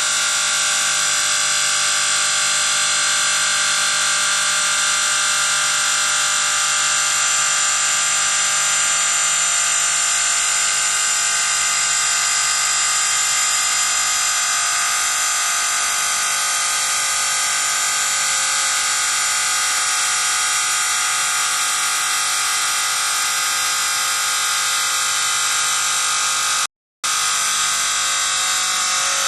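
CNC stone bridge saw's diamond blade cutting stone, a steady high-pitched whine that cuts out completely for a moment near the end.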